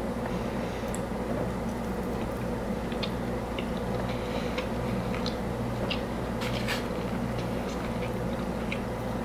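Person chewing a mouthful of food with the mouth closed, giving faint, scattered wet clicks, over a steady low background hum.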